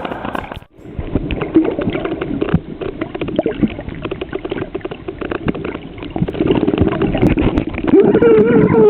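A waterproof camera plunges under the sea surface about a second in, and the sound turns muffled: underwater sloshing and dense crackling, with a steady held tone rising up near the end.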